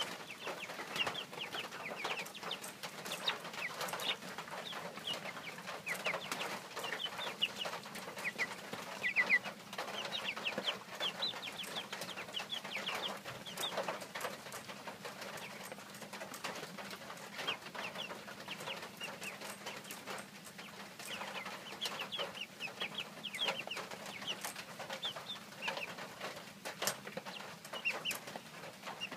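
A flock of hens clucking and chirping with many short, high calls, mixed with frequent sharp taps and clicks, over a faint steady hum.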